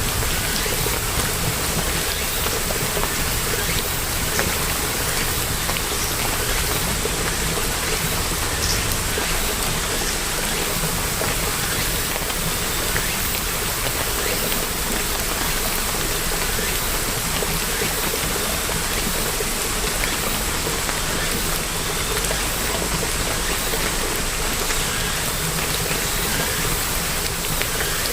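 Steady rain falling, with a dense patter of many small drop impacts.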